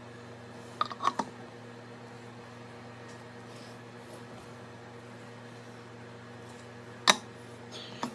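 A few light clicks about a second in, then one sharp knock about seven seconds in, as a cast aluminium gearbox housing is handled and fitted onto a pressure-washer pump. A steady low hum runs underneath.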